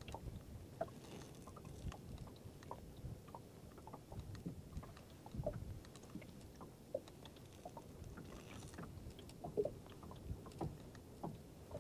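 Faint water lapping against the hull of a small open boat on choppy water, with scattered small knocks and clicks.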